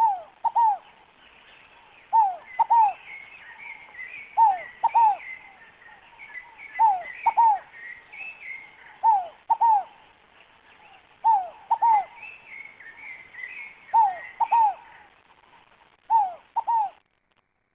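Scaled dove (fogo-apagou) singing: a loud two-note coo, both notes falling, repeated about every two seconds, eight times. Other small birds chirp faintly and higher in the background.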